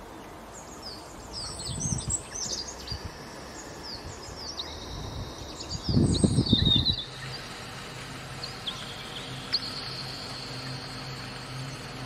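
Small songbirds chirping and twittering in quick, high, short notes, busiest in the first half, thinning to a few calls and a thin held note later. A low rumble swells twice, loudest about six seconds in.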